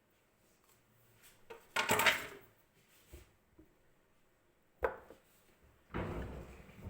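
Kitchen work noises: two short, noisy scrapes about four seconds apart, with a sharp knock between them.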